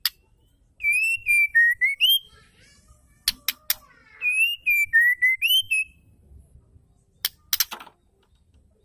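White-rumped shama singing two phrases of clear, whistled notes that glide up and down, about a second in and again about four seconds in. Sharp clicks come between and after the phrases.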